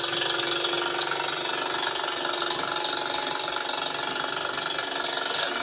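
Outrigger fishing boat's engine running steadily while the boat is underway, a dense even drone of many steady tones.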